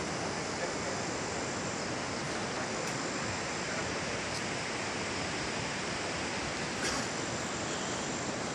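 Steady, even rush of a mountain river's water, unbroken throughout.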